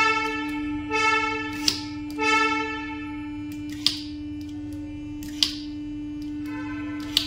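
Volkswagen 7-speed DSG mechatronic unit running on a test bench with its system activated. A steady electric hum runs throughout, with three short whining tones in the first three seconds and a sharp click about every two seconds as its valves and gear shifters are actuated.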